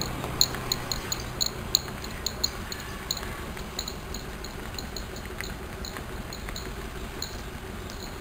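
Cattle hooves walking on a paved road: light, irregular clicks, several a second, that grow fainter after the first few seconds.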